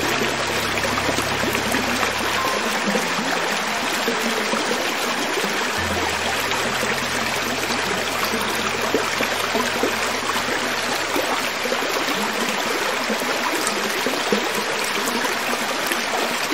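Creek water running over rocks: a steady, even rushing with no breaks.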